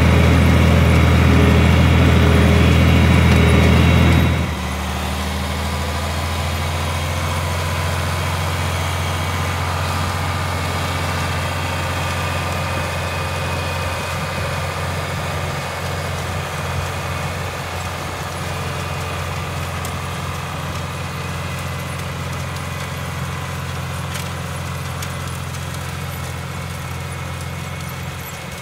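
Farm tractor's diesel engine running steadily. About four seconds in it suddenly gets quieter, then it runs on, slowly fading.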